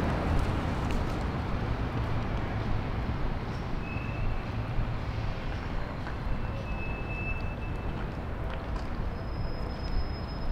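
City street ambience: a steady low rumble of passing vehicles, with a few brief thin high-pitched squeals.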